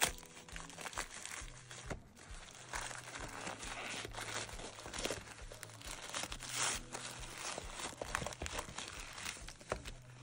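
Thin striped gift-wrapping paper crinkling and rustling as hands unfold and pull it open from a small present, with many small crackles and a sharp tap right at the start.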